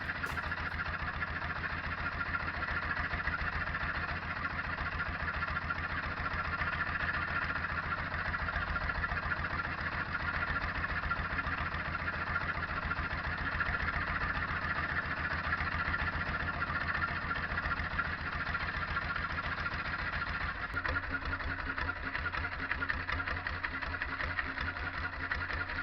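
Fishing boat's engine running steadily with an even, rapid beat; about 20 seconds in its note changes.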